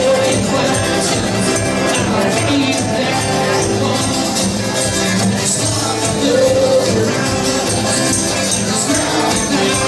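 Live rock band playing: a strummed twelve-string acoustic guitar with electric guitars and drums, over a fast steady ticking in the high end.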